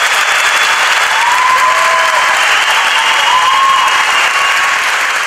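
A large audience applauding: a dense, steady round of clapping that begins to thin near the end, with a few faint voices rising and falling over it.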